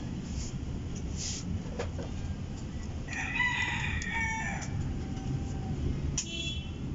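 A rooster crowing once, about three seconds in: one drawn-out crow lasting under two seconds, over a steady low rumble, with a brief sharp click near the end.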